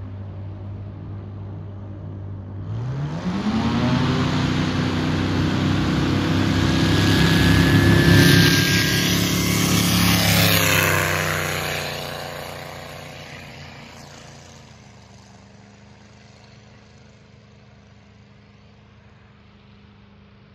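Titan T-51 Mustang replica with a Chevrolet LS3 V8 engine and propeller taking off: the engine runs steadily, then about three seconds in it goes up to full power with a rising pitch. It grows louder as the plane rolls past, drops in pitch as it passes, and fades away as it climbs out.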